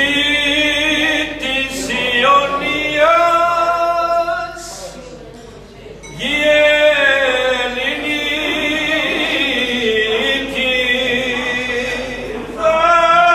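Male voices singing a Greek folk song unaccompanied, in long drawn-out, ornamented phrases, with a short lull about five seconds in before the next phrase.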